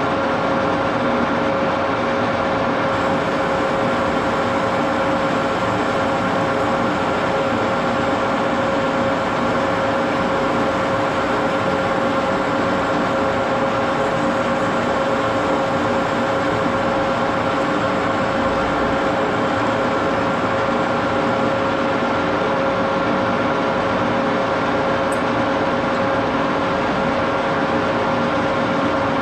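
1941 Axelson gear-head lathe running steadily under power, a constant gear whine over the even machine noise.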